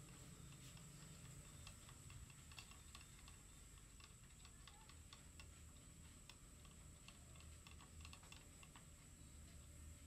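Near silence with faint, irregular light clicks and ticks of metal parts being handled at the timing end of a 2C diesel engine.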